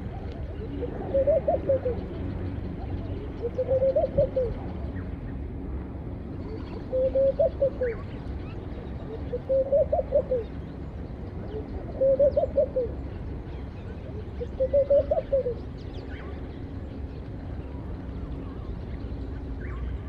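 A dove cooing: a bubbling call of quick notes that rises and falls in pitch, repeated six times about every two and a half seconds. Faint high chirps from other birds and a steady low background rumble lie underneath.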